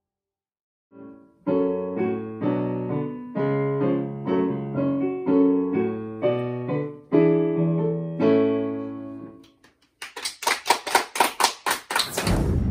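Digital piano played as a short run of chords, each held and sustained. About ten seconds in, a few people clap briefly, and the clapping cuts off abruptly.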